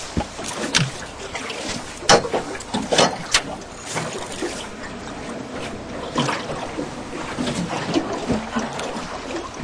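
Freshly landed Australian salmon flapping in a landing net on a boat deck: irregular slaps and knocks, the loudest clustered between about two and four seconds in, over a steady background hiss.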